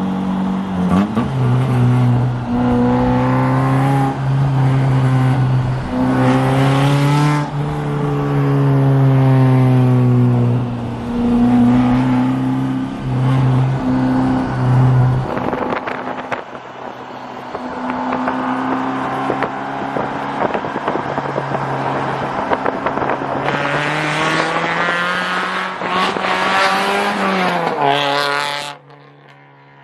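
1991 Mazda Miata's 1.6-litre four-cylinder engine running through downpipes and an ISR blast pipe exhaust, with the car on rollers. The engine revs rise and fall several times, then drop back to a quieter idle near the end.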